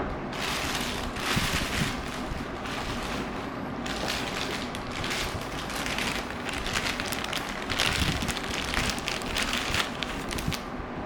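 Xiaomi Robot Vacuum E10 running, a steady low motor sound with bursts of crackling hiss that come and go as it works the floor. A sharp click right at the start.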